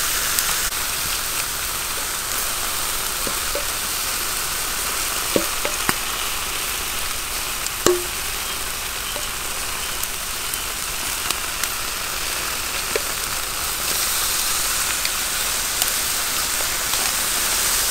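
Crocodile meat sizzling on a charcoal grill as sauce is brushed onto it: a steady hiss with a few sharp clicks.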